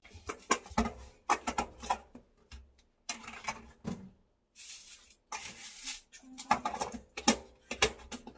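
Kitchen things being handled and moved about: a run of knocks, clicks and clatters, with a stretch of rustling about halfway through.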